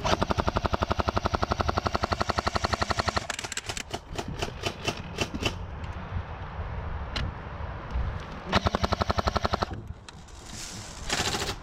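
A&K M249 PARA airsoft electric gun firing full-auto: a rapid, even rattle of shots lasting about three seconds, scattered single cracks after it, and a second, shorter burst later on.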